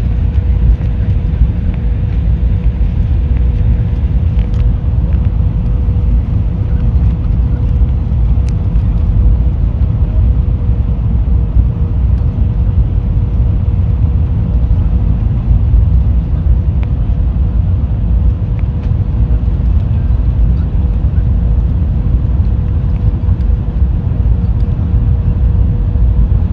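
Jet airliner cabin noise on final approach: a steady, loud rumble of engines and airflow, with a thin, steady hum at one pitch over it.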